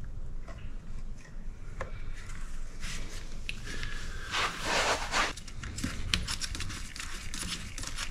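Handling noises from oil-filling gear at a small generator's oil fill: clicks, taps and scrapes of a plastic measuring cup and plastic filler tube. There is a louder scraping noise lasting about a second, about four and a half seconds in.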